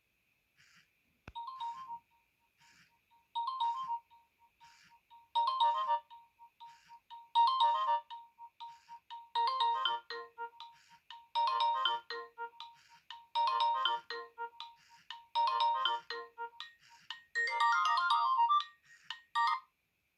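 Polyphonic ringtone playing from a Nokia N70 mobile phone's speaker: a short melodic phrase repeating about every two seconds over a steady held note, growing fuller as more parts join from about five seconds in, and stopping just before the end.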